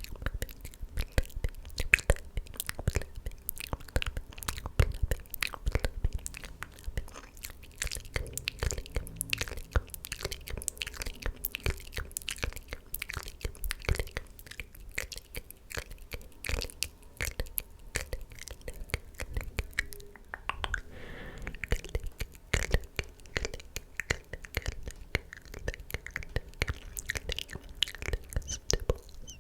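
Close-miked ASMR mouth sounds: a dense, irregular run of wet clicks and smacks from lips and tongue, mixed with unintelligible whispering.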